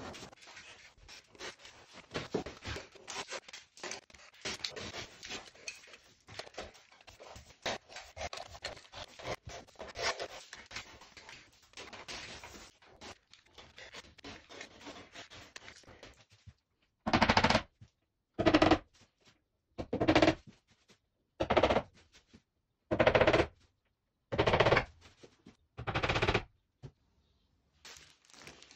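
A hand-held blade scraping and scoring a plastered wall: light, irregular scratching at first, then seven loud rasping strokes about a second and a half apart.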